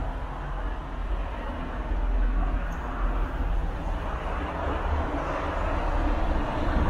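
A motor vehicle passing on the street: a low engine rumble with tyre and road noise that swells in the second half.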